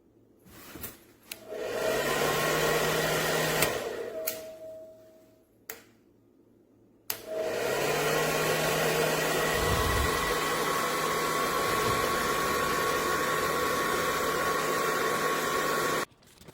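Remington Damage Protection hair dryer switched on with a click, running briefly and winding down after it is switched off. It is switched on again about seven seconds in and runs steadily with a rushing airflow and a motor whine until it cuts off suddenly near the end.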